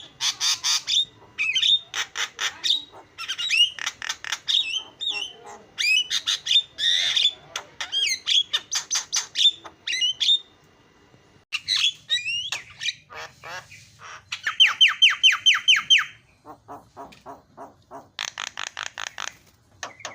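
Javan myna singing a fast, chattering medley of harsh squawks, whistled slurs and rattles. There is a short pause about halfway through, and fast even rattling trills near the end.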